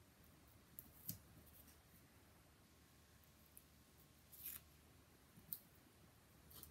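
Faint scratching and crinkling of the backing being picked at and peeled off strips of double-sided tape on a paper album cover: a few short scratches about a second in, a slightly longer one around four and a half seconds, and another near five and a half seconds.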